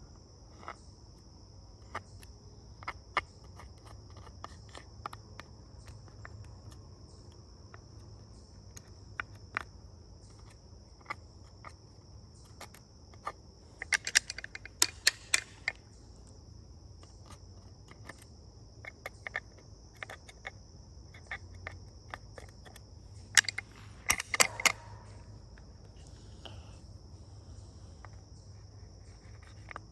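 Small metal tweezers clicking and scraping against a STIHL 462 chainsaw's housing, picking packed sawdust and debris out of it: scattered light ticks, with two busier flurries of sharp clicks partway through.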